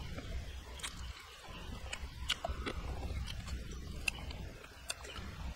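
A person biting and chewing crispy fried toad frog close to the microphone: a scatter of sharp, irregular crunches over a low rumble.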